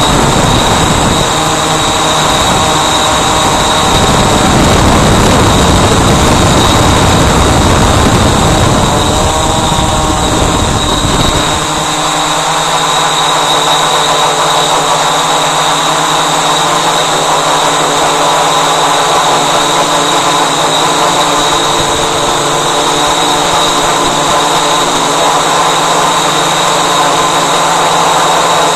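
Walkera Voyager 3 quadcopter's brushless motors and propellers whining steadily, heard through its onboard camera. Wind buffets the microphone for about the first eleven seconds, then stops, leaving a steadier hum.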